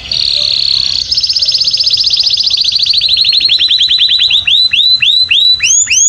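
A finch singing. A buzzy trill gives way about a second in to a fast trill of repeated notes that slows steadily, the notes lengthening into upward-curving sweeps, about two a second near the end.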